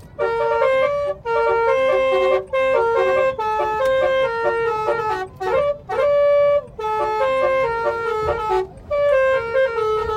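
Telolet musical car horn playing a quick tune of stepping notes, several tones sounding together, in phrases broken by short pauses.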